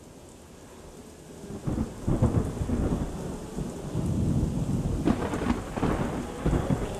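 Thunderstorm: rain hiss fading in, then heavy rumbling thunder swelling about a second and a half in, with sharper claps of thunder around five and six and a half seconds.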